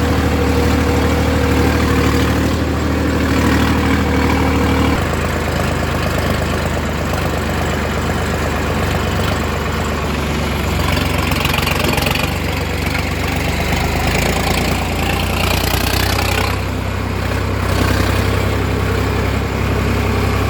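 Large diesel engine of heavy machinery running steadily, its note changing abruptly about five seconds in and again near eleven and sixteen seconds.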